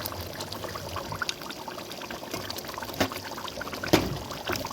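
Water pouring and trickling, with two sharp knocks about three and four seconds in.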